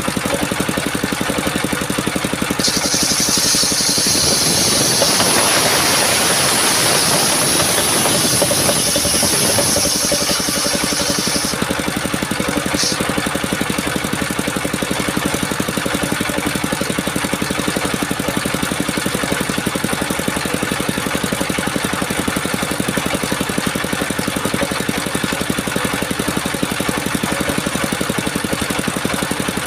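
Engine-driven mobile circular sawmill running steadily. From about three seconds in to about eleven seconds in, a loud high hiss and rasp join the engine as the blade cuts through coconut trunk. Then it goes back to the plain engine run, with a brief high click a little later.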